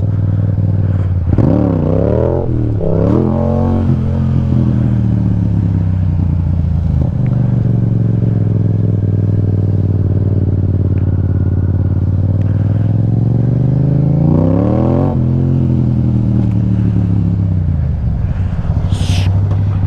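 Motorcycle engine revved hard twice in quick succession about a second in, then running steadily under way. Its revs climb again about three-quarters of the way through and then fall away.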